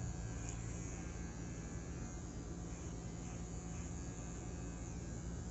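Electric hair trimmer buzzing steadily as it cuts a baby's hair.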